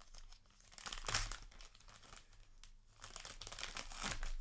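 Trading-card booster pack wrapper being torn open and crinkled. There are two loud stretches of crackling: one about a second in, and another starting about three seconds in.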